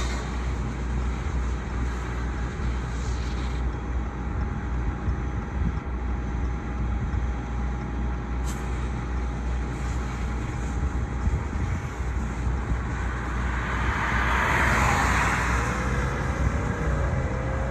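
A fire engine's engine running with a steady low rumble under a constant hiss. A louder rush of noise swells and fades near the end.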